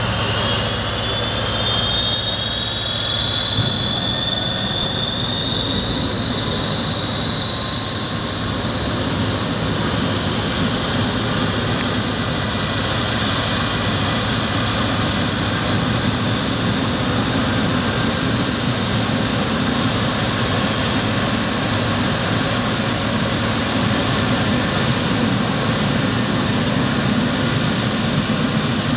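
Lockheed T-33 jet trainer's turbojet engine starting up: a whine rising in pitch over the first several seconds, settling into the steady rushing noise of the engine running.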